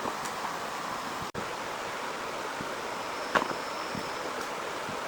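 Heavy rain falling steadily, an even hiss, with an occasional sharp tick. The sound drops out for an instant about a second in.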